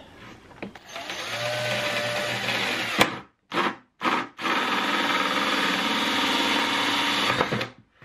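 Cordless drill driving a hole saw through the wall of a plastic bucket. It runs steadily from about a second in, cuts out briefly twice around the three-second mark with a short burst between, then runs steadily again until it stops just before the end.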